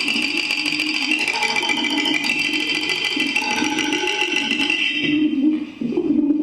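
Live experimental music from a daxophone: a low, wavering, bending tone runs throughout. Over it sits a dense high buzzing rattle that cuts off about five and a half seconds in.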